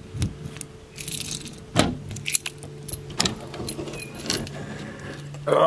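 Keys jangling on a key ring as a key is turned in the lock of a caravan's outside storage hatch, with sharp clicks and knocks from the lock and the hatch being opened. A low steady hum comes in about a second in.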